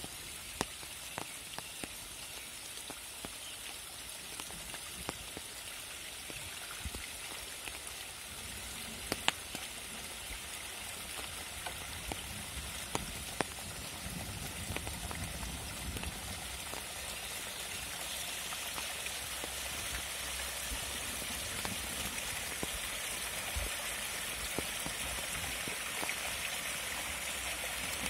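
Rain pattering in woodland, with occasional sharp drips. From about halfway, the rush of a flash-flood surge coming down a small rocky forest stream bed builds and grows louder toward the end.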